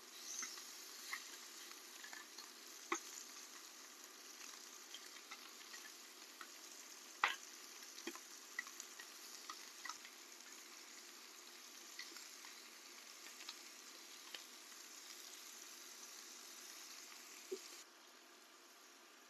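Pork belly sizzling steadily on a hot grill pan, with scattered sharp clicks and taps from kitchen scissors and a spatula as the meat is cut into pieces. The sizzle drops abruptly near the end.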